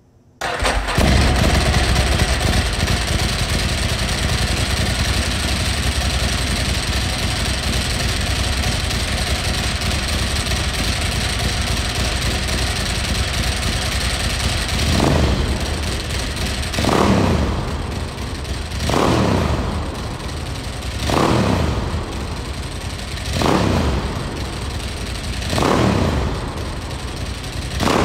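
Ducati Sport Classic's air-cooled L-twin engine starting up and catching at once, then idling steadily. From about halfway it is blipped six times, each a quick rise and fall in revs about two seconds apart.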